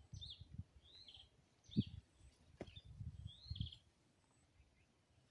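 Birds chirping in short calls, about five of them, over soft scrapes and thumps of hands working loose soil. A dull thump a little under two seconds in is the loudest sound.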